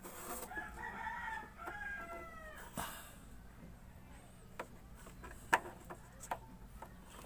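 A rooster crowing once, a call of about two and a half seconds whose pitch falls away at the end. After it come a few sharp clicks or knocks.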